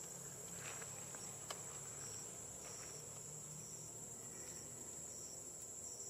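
Insects, likely crickets, calling: a continuous high-pitched trill with a second, shorter chirp repeating about every three-quarters of a second. A single sharp click sounds about a second and a half in.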